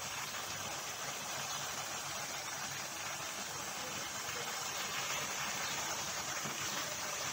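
Chicken mince bubbling and sizzling in watery tomato liquid in a frying pan over high heat: a steady hiss as the liquid cooks off.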